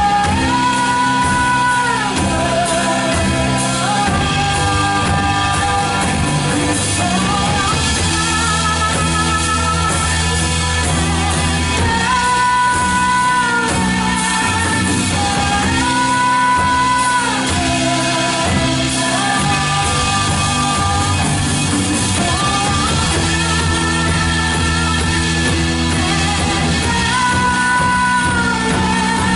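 Live church worship band playing a song in a large room, with a sung melody held in long notes over a steady bass and full-band accompaniment.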